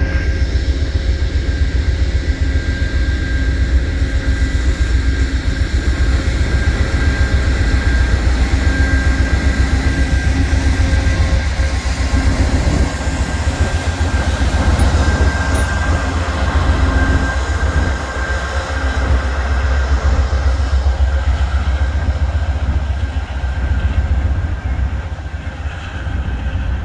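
Amtrak Heartland Flyer passenger train running: a steady heavy low rumble with faint steady high-pitched tones over it, easing slightly near the end.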